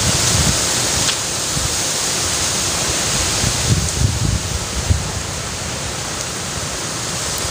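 Wind buffeting the microphone in stormy weather: a loud, steady rush with gusting low rumbles that come and go.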